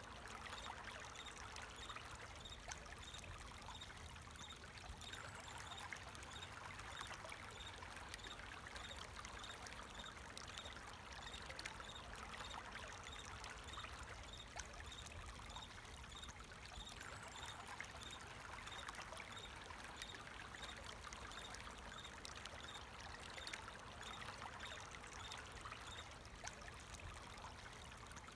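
Water flowing steadily in a stream, with crickets chirping in an even, repeating rhythm above it.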